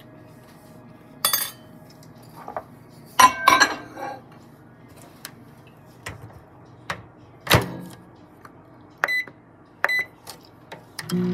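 A few knocks and clinks as a ceramic oatmeal bowl is handled, then near the end three short high beeps from a microwave keypad being pressed to set a 30-second reheat.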